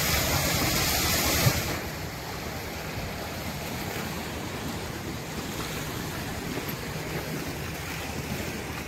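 Sea waves washing against a rocky shore: a steady surf wash, louder for the first second and a half and then even.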